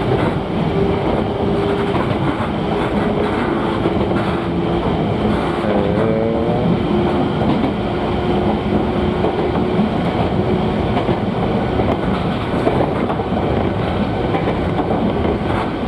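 Former Seibu electric train running along the line, heard from the driver's cab: a steady rumble of wheels on the rails with clickety-clack of the rail joints, and a steady electric motor hum whose pitch shifts in small steps.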